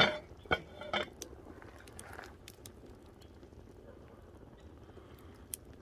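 Metal clanking three times in quick succession with a short ring, as metal is handled at the cast-iron cauldron over the wood fire. After that, scattered faint crackles from the burning firewood.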